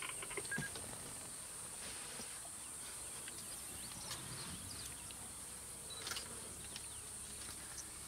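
Steady high-pitched drone of insects in the bush, low and even, with a few faint ticks and rustles.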